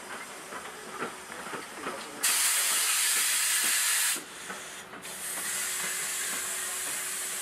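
Steam locomotive 477 043 venting steam with a hiss. A loud hiss starts suddenly about two seconds in and cuts off about two seconds later, then a quieter steady hiss starts about five seconds in.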